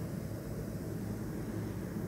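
Machine running with a steady low electrical hum and an even noisy whir.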